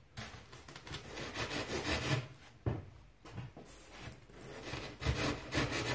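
A hand tool scraping across rigid foam board in several irregular strokes, each lasting about a second, with short pauses between.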